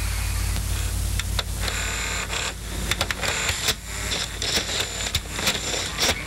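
Experimental noise: a steady low hum under crackling clicks and snaps, which grow denser and louder about three seconds in.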